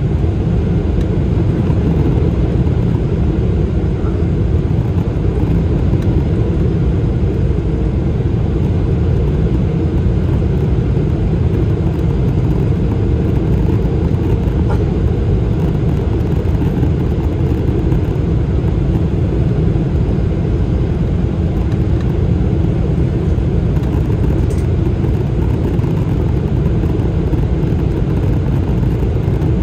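Steady cabin noise inside a Boeing 777-300ER on approach, heard from a seat over the wing: its GE90 engines and the rushing air make an even, low rumble that holds at one level.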